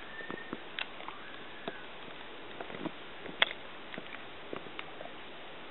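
Cardigan Welsh Corgi puppy licking and mouthing at a blanket: soft scattered clicks and snuffles, with one sharper click about halfway. A thin, high, wavering whine sounds in the first couple of seconds.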